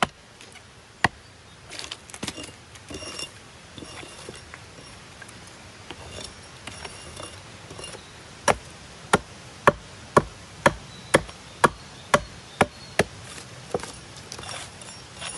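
Hatchet chopping into a dry, weathered log, hewing its top flat. A few scattered strikes and some scraping of wood chips come first. Past the middle comes a run of about ten quick chops, roughly two a second.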